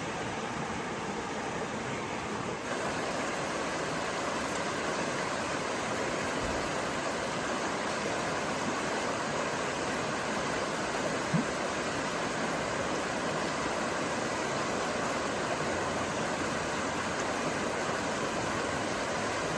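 Steady outdoor rushing noise, even and without rhythm, with one short knock about eleven seconds in.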